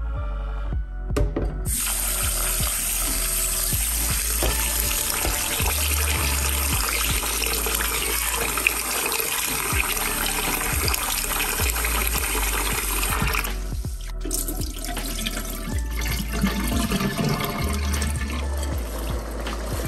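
Water running steadily into a glass bowl of rice as the rice is swished and rinsed by hand; the rush stops suddenly about two-thirds of the way through, followed by sloshing as the cloudy rinse water is poured off into a stainless steel sink.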